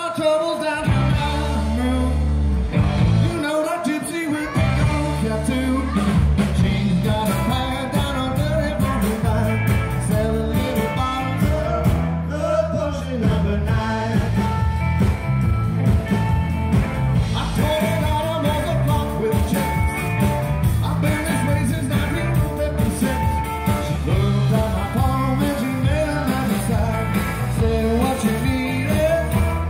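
Live rock band playing: two electric guitars, bass guitar and a drum kit through stage speakers, with a man singing lead.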